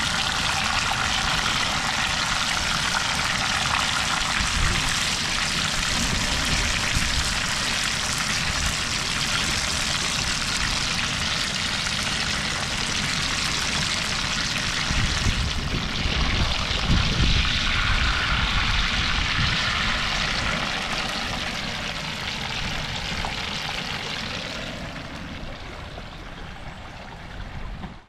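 Hot oil sizzling steadily in a frying pan, with wind rumbling on the microphone that gusts stronger about halfway through; the sizzle fades over the last few seconds.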